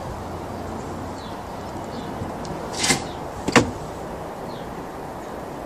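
Steady background hiss with a brief whoosh about three seconds in, followed under a second later by a single sharp knock.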